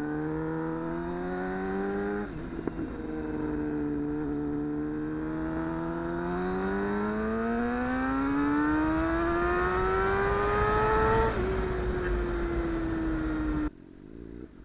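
2014 Suzuki GSX-R750's inline-four engine accelerating hard, its pitch climbing steadily. There is an upshift about two seconds in, then a long pull to high revs, and the throttle eases off about eleven seconds in before the sound cuts off abruptly near the end.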